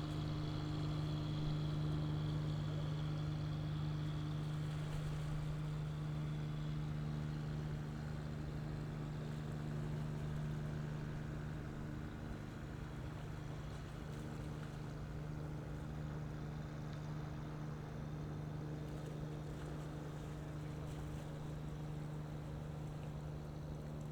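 Large car ferry's diesel machinery giving a steady low drone with a few held hum tones as the ship passes, easing slightly after about halfway.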